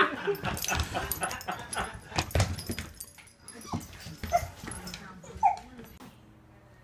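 A dog giving three short, high whimpers in the second half, after a run of quick sharp clicks and scuffles.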